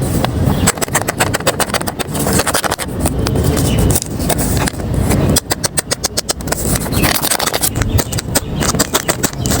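Paper crinkling and rustling as a paper blind bag is unwrapped by hand: dense irregular crackles, with a quick, even run of them about five to six seconds in.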